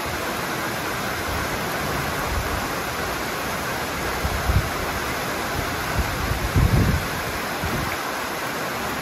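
Heavy rain falling as a steady hiss, with a few gusts of wind buffeting the microphone in the middle of the stretch.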